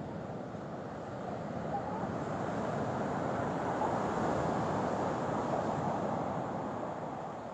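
Ocean surf: a wave washing in, the rush swelling about a second and a half in and easing near the end.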